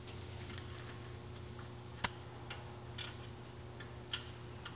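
Faint, irregular clicks and clinks of hand tools and bolt hardware being fitted to an exhaust bracket, with a sharper click about two seconds in, over a steady low hum.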